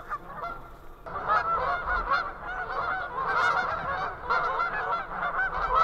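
A large flock of geese honking, many calls overlapping, fainter at first and louder from about a second in.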